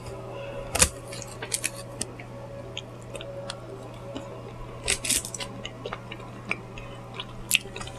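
Close-mic eating sounds of fried chicken: scattered sharp mouth clicks and smacks as she chews, with a cluster about a second in and another around five seconds, over a low steady hum.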